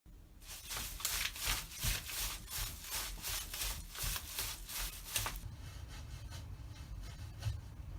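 Konnyaku (konjac jelly) worked by hand as a foley stand-in for a zombie eating flesh: a quick run of squishing strokes, about three a second, that stops about five seconds in.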